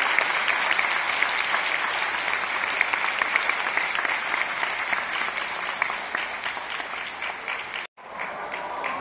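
Concert audience applauding, a dense steady clapping that slowly fades; the sound drops out for a moment near the end.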